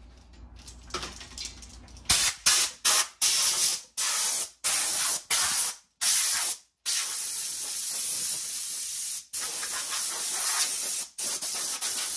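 Compressed air from a coiled air hose blowing cutting shavings off a freshly cut plastic truck grille: a loud hiss that starts about two seconds in as several short blasts, then runs in longer steady blasts with brief breaks.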